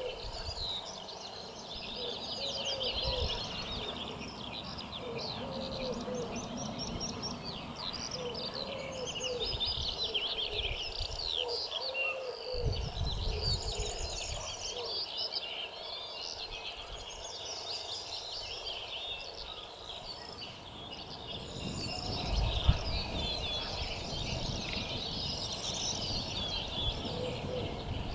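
Outdoor spring birdsong: many songbirds singing at once in a dense, continuous chorus of fast, high chirping notes. A lower, short call repeats every few seconds over it, and there are patches of low rumbling noise.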